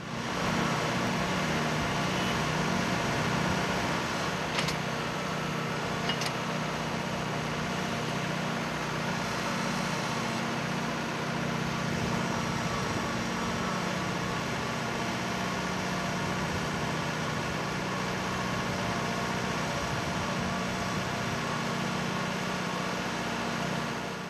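Tractor engine running steadily while driving a PTO-powered post hole auger boring into the soil. Two short sharp clicks, about four and a half and six seconds in.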